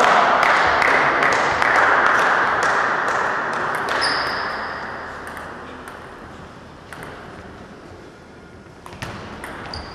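Table tennis ball ticking sharply off bats and table, over a loud hiss of crowd noise that dies away over the first half; more ball ticks near the end.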